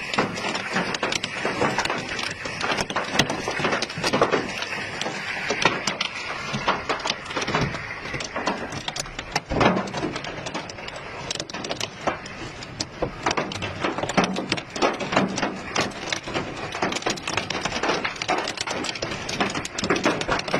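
Heavy hail falling: a dense, unbroken clatter of hailstones striking the ground and hard surfaces around, with many sharper individual cracks and one louder strike about halfway through.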